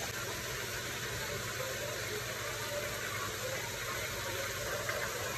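Pot of water at a rolling boil with ears of corn in it, bubbling steadily.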